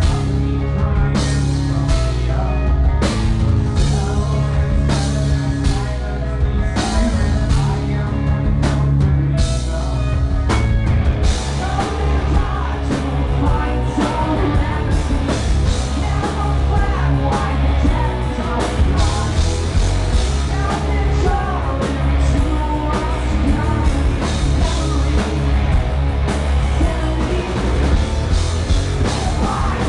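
Live rock band playing loud: drum kit, electric guitars and bass under a male lead singer. About ten seconds in the band moves into a fuller, denser section.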